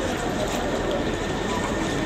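Crowd of onlookers murmuring and talking over a steady noisy rumble, with no single sound standing out.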